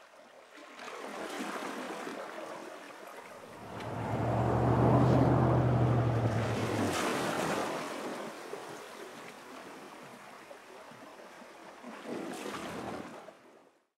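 Outdoor ambience with wind buffeting the microphone, and a low engine hum that comes in about three and a half seconds in and fades out around seven seconds. The sound cuts off abruptly just before the end.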